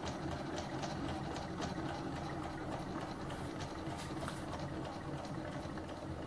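Small home-built gamma-type Stirling engine, fired by a methylated-spirits burner, running on its own with a steady mechanical hum and a regular ticking from its linkage at about five ticks a second. The ticking gets fainter in the second half.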